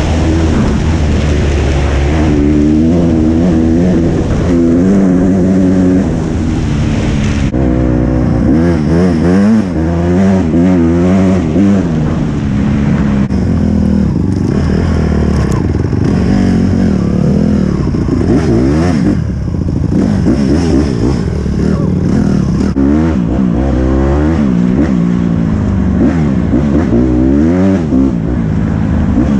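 Dirt bike engine heard from the rider's seat, revving up and down again and again as it accelerates and changes gear, with a rushing hiss over it for the first seven seconds or so.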